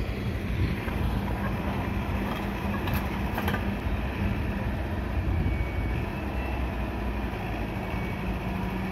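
Hitachi EX120 excavator's diesel engine running steadily, with two short clanks about three seconds in.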